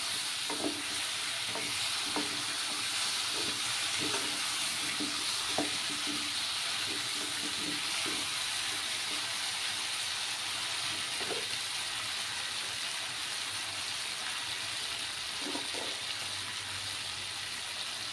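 Pieces of small taro (ghati kochu) sizzling in hot mustard oil in a non-stick wok while the spice mix is fried with them. A wooden spatula scrapes and knocks against the pan in a run of stirring strokes over the first several seconds, then twice more later, over a steady sizzle.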